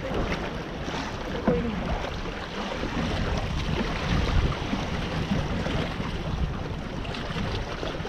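Wind buffeting the microphone over seawater lapping and small waves splashing against the rocks at the foot of a sea cliff, with a couple of brief louder splashes.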